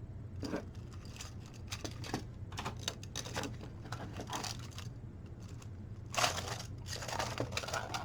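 Small hard plastic clicks and rustling from 3D-printed track links being handled, irregular, with a denser burst of scraping and clicking about six seconds in, over a steady low hum.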